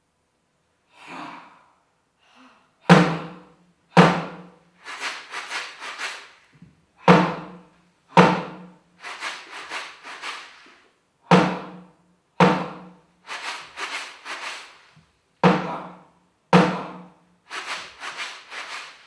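A drum beaten with a stick in a repeating rhythm: two strong beats about a second apart, then a run of four lighter, quicker beats, the cycle coming round about every four seconds. The first couple of seconds hold only faint scattered sounds.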